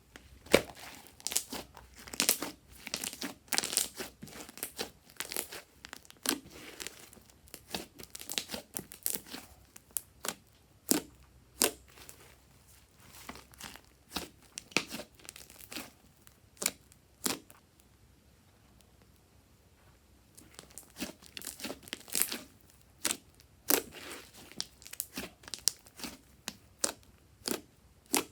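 Slime being squeezed and worked by hand, giving irregular sticky crackles and pops with a brief quiet pause about two-thirds of the way through.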